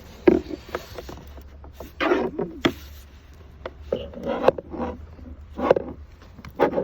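Plastic clicks and short scraping and rubbing noises from a diagnostic cable being handled and plugged into a plastic wiring connector, in several separate bursts over a steady low hum.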